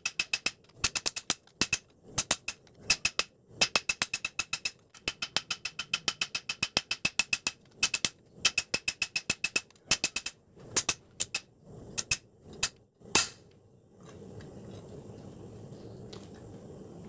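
Hand hammer forging a red-hot leaf-spring knife blade on a cylindrical steel post anvil: quick bursts of sharp, ringing blows, about five or six a second, with short pauses between bursts. The blows thin out and stop about thirteen seconds in, leaving a steady low hiss.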